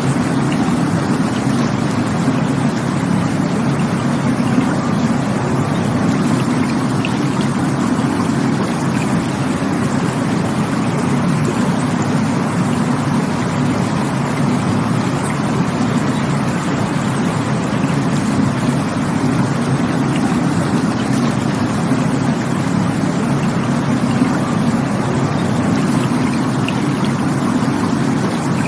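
Rushing water, a loud, steady, unbroken rush with most of its weight in the low range.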